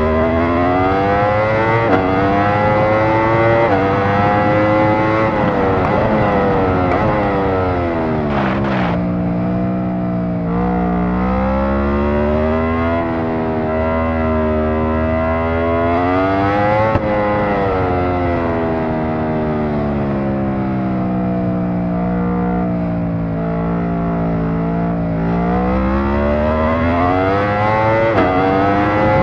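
Aprilia RSV4's V4 engine running hard, its pitch climbing for several seconds and then falling away, three rises in all. There is one brief click about eight seconds in.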